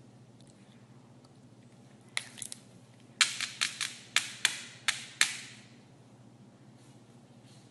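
A quick run of sharp taps or knocks: three light ones about two seconds in, then about eight louder ones over the next two seconds.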